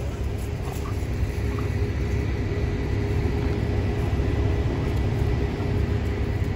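A steady low rumble with a faint constant hum running through it.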